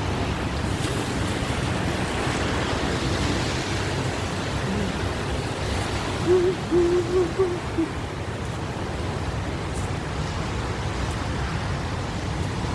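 Steady street noise with a low rumble and hiss on a wet city street, and a short run of low, wavering tones about six seconds in, the loudest thing heard.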